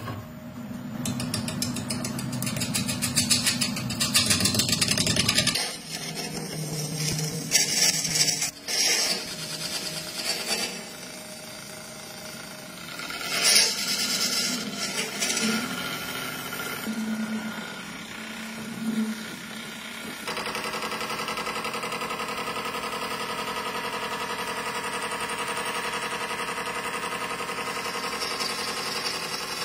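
Lathe spinning a large cylindrical blank while a hand-held drill bit bores out its centre and then a turning chisel cuts the outside, peeling off long ribbons of shavings. From about two-thirds of the way in, the sound settles into a steady, even hum.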